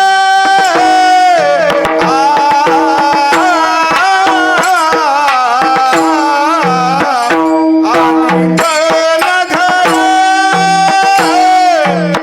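Male voice singing a Marathi Varkari abhang in a kirtan melody, with long held notes and ornamented, wavering runs over a steady drone note. Hand-drum strokes accompany him.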